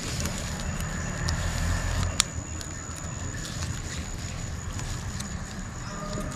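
Soft handling noises from gloved hands tying a gauze bandage knot, with a few small ticks and one sharp click about two seconds in, over a steady high thin tone and a low background rumble.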